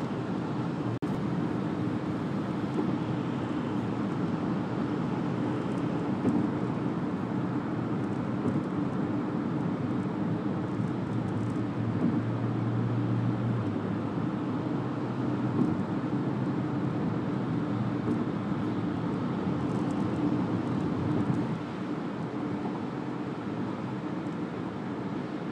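Steady road noise heard from inside a car's cabin at freeway speed: tyres on wet pavement and the engine running, with a single click about a second in. The noise eases slightly near the end.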